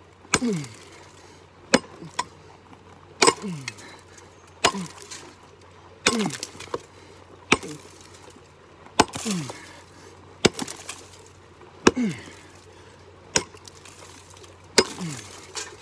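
Steel pickax striking rock in steady, repeated blows, about one every second and a half, each a sharp metallic chink as rock breaks. Every other blow is followed by a short falling grunt of effort.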